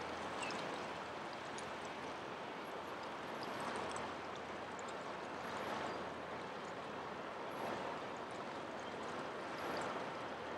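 Riverside ambience: a steady wash of river water moving and lapping at the bank, swelling and easing every couple of seconds, with faint short high chirps here and there.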